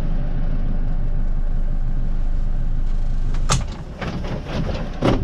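Motorboat engine running steadily. About three and a half seconds in, the drone drops and several sharp knocks follow, the loudest near the end.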